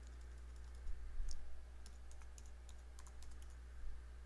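Typing on a computer keyboard: a scattered run of key clicks as a word is typed, over a steady low hum.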